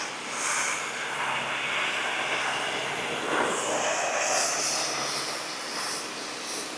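Greenworks 1900 PSI electric pressure washer running steadily, its motor humming under the hiss of the water jet from a 40-degree nozzle spraying against siding.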